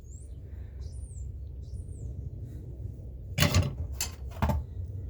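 Faint bird chirps in the background, then three sharp knocks about half a second apart, from old screwdrivers being handled and set down.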